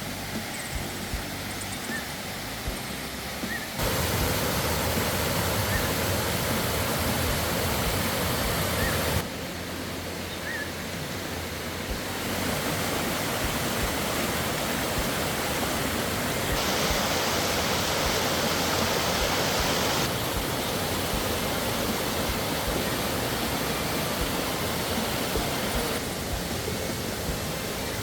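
Waterfall in the forest, water rushing and splashing in a steady roar whose loudness jumps up or down abruptly several times.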